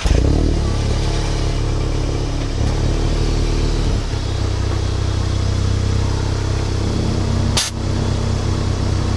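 A Volkswagen Mk7 GTI's turbocharged 2.0-litre four-cylinder, still on its stock downpipe and exhaust, starting up and then idling steadily, the idle shifting slightly a couple of times.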